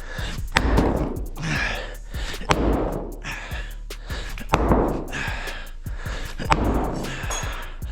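Heavy hammer blows breaking up a concrete floor, about one strike every two seconds, with hard breathing between strikes.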